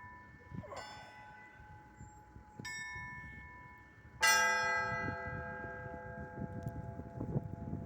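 Bells struck one at a time: a faint stroke about a second in, a louder one a little later, then a loud stroke about four seconds in whose many overtones ring on and slowly fade.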